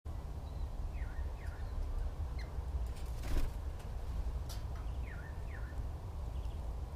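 Birds calling: short notes that slide down in pitch, twice in quick pairs, over a steady low rumble, with a brief rush of noise about halfway through.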